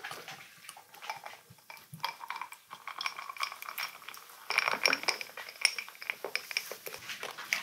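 Beer pouring from a glass bottle into a drinking glass and foaming up, with small glassy clinks. The pour grows louder and denser about two-thirds of the way through.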